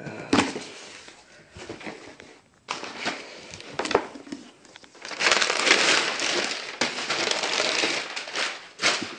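Brown packing paper crinkling and rustling as it is handled in a cardboard box, with a few sharp knocks from the box. The rustling is loudest and most continuous for about three seconds starting some five seconds in.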